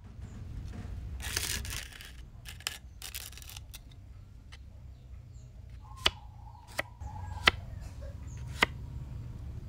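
A blade scraping rust and residue off the steel top plate of a loudspeaker magnet assembly, in a couple of short scraping strokes, followed by four sharp clicks in the second half.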